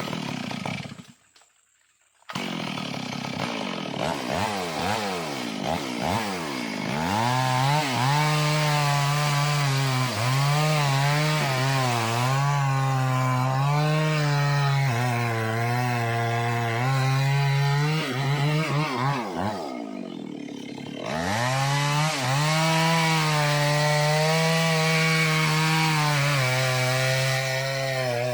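Two-stroke chainsaw coming in about two seconds in and blipped up and down a few times. It is then held at high revs cutting wood, the pitch wavering under load. The revs drop for about a second around twenty seconds in, then pick up again as it cuts on.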